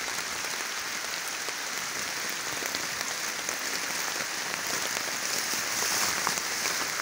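Steady rain falling, a dense even hiss of many small drop hits close by.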